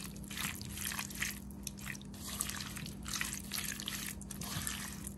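A hand squelching raw prawns through a wet masala paste of chilli powder, spices, vinegar, oil and water in a bowl, coating them: a run of irregular wet smacks and squishes over a faint steady hum.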